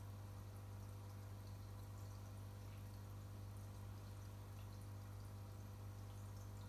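Aquarium equipment running: a steady low hum with faint dripping and trickling water from the tank's filter and air bubbling.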